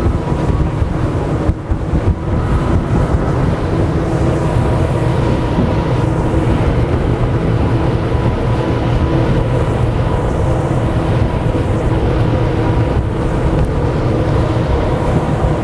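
Quad Mercury Racing 450R supercharged V8 outboards running hard at speed, a steady loud drone mixed with the rush of water from the hull and wake.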